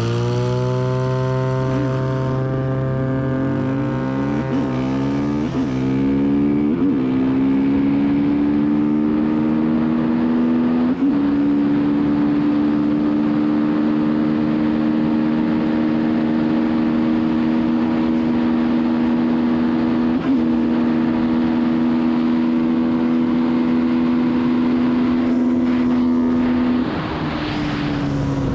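Suzuki LTR450 quad fitted with a Honda CRF450 engine accelerating hard, revs climbing and breaking as it shifts up several times in the first seven seconds and twice more later. The engine then holds a steady high pitch before easing off about 27 seconds in.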